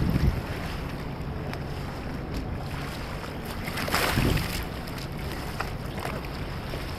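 Wind buffeting the microphone over open water, with a splash about four seconds in as a whitewater kayak capsizes with its paddler.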